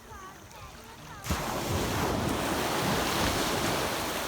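Ocean wave breaking: a loud rush of surf that starts suddenly about a second in and hisses on for about three seconds. A few faint high chirps come before it.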